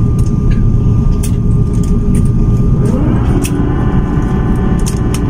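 Cabin noise of a jet airliner taxiing after landing, heard from inside the cabin: a steady low rumble with a thin steady whine and scattered clicks and rattles. About three seconds in, a higher whine with many overtones slides up and then holds.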